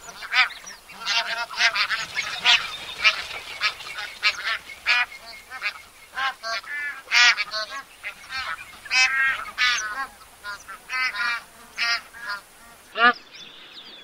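Bar-headed geese calling: many nasal honks in quick succession, several birds overlapping. The recording changes about a second before the end, with the honking carrying on.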